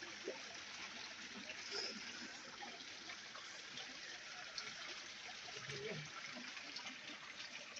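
Stream water running with a steady, faint trickling rush, with faint voices here and there.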